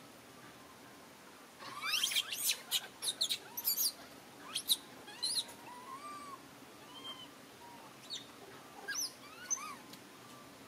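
Young long-tailed macaques squealing: a run of shrill, falling squeals starts about two seconds in and lasts about two seconds, followed by a few shorter squeaks and softer rising-and-falling coos.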